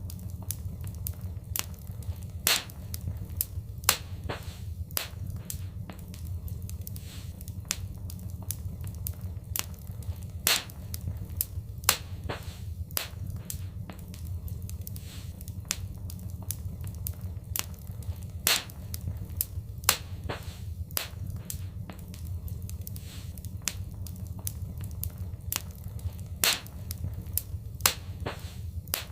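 Fireplace fire crackling over a steady low rumble, with frequent irregular snaps and a few louder pops.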